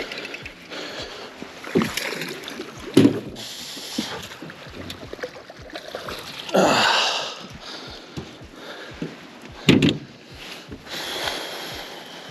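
A hooked bass being landed: water splashing as it is scooped into a landing net beside the boat, with a longer splash about halfway through and a few sharp knocks and thumps on the boat deck.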